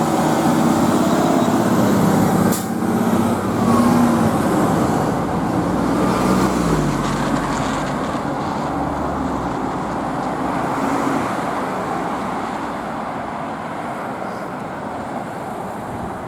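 Heavy emergency vehicles' engines running loudly past, then slowly fading away, with the last wail of a siren falling in pitch in the first few seconds and an engine note dropping about six seconds in.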